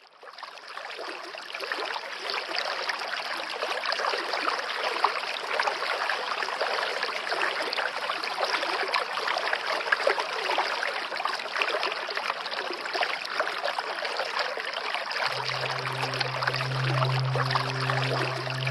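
Rain falling steadily, a dense patter of many individual drops that fades in at the start. A few seconds before the end, a low held musical note comes in underneath.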